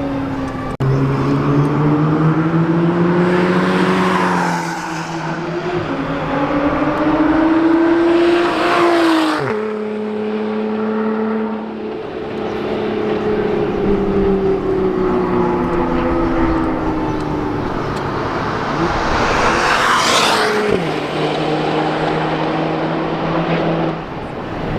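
High-performance sports car engine accelerating hard, its note climbing steadily in pitch. It drops sharply twice, about nine and a half seconds in and again near twenty-one seconds, each time just after a loud rush of exhaust and tyre noise as a car passes.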